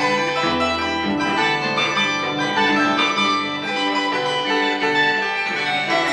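Wooden harp played by hand: a continuous run of plucked treble notes over deeper bass notes.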